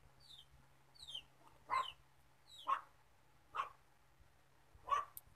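A dog barking, four short barks about a second apart, starting a couple of seconds in. Before the barks, a chicken gives two high, short falling peeps.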